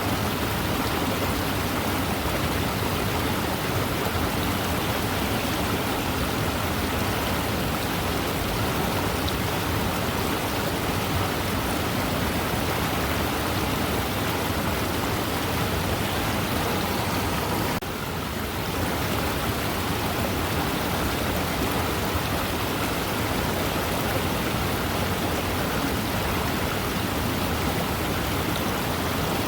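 Waterfall: a steady, dense rush of falling water, with a brief dip in level a little past halfway through.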